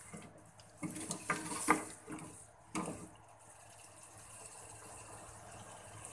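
A black ladle stirring a chicken-and-squash curry in an aluminium pot, knocking and clinking against the pot several times in the first three seconds. After that, a steady soft hiss from the pot cooking on the stove.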